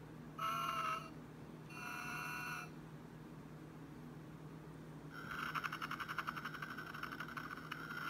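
Animated sleeping Santa figures' sound effect of whistling breaths: two short whistles in the first three seconds, then a longer fluttering whistle from about five seconds in, over a steady low hum.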